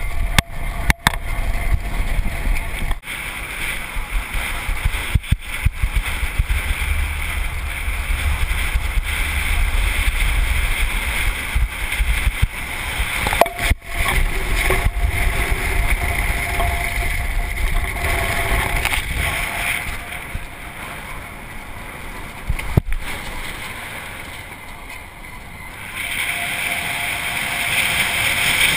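Subaru car driving over loose dirt and cinders, heard through a camera mounted outside the car. Wind rushes over the microphone on top of tyre and gravel noise, with a few brief dropouts. The noise eases off for several seconds near the end, then jumps back up about three seconds before the end.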